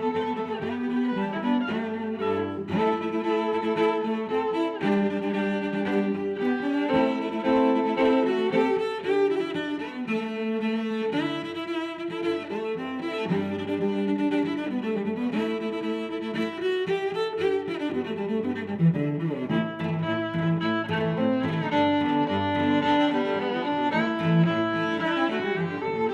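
Background music played by bowed strings, cello and violin, in slow changing notes at a steady level.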